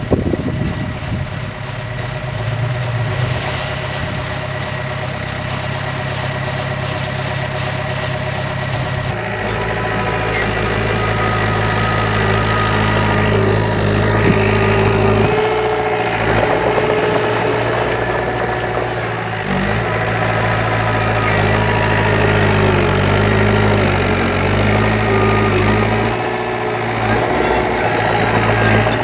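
Heavy construction machine's diesel engine running, with its pitch and load changing several times: it grows louder about a third of the way in, then rises and falls.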